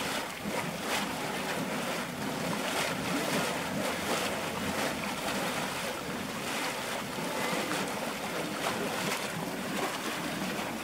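Wallender Born cold-water geyser churning and welling up in its shallow stone basin: a steady rush of water, carbon-dioxide-driven, with irregular splashes throughout.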